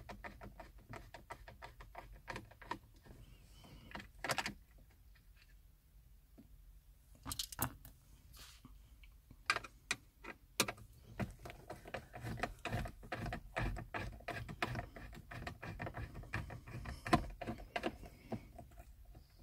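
Phillips screwdriver working the radio's mounting-bracket screws out of a car dashboard: a run of small clicks and ticks, with a few louder clicks now and then.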